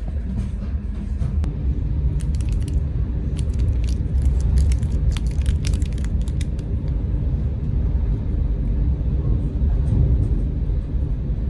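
Steady low rumble of a moving train heard from inside the carriage, with a run of light rattling clicks in the middle.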